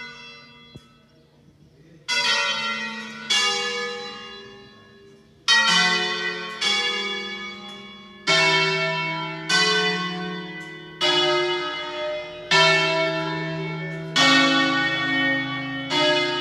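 Church bells from an eight-bell tower playing a pre-programmed 'concerto' melody. The bells strike one at a time at different pitches, about ten strokes roughly one to two seconds apart, each left ringing into the next. The first stroke comes after a short lull about two seconds in.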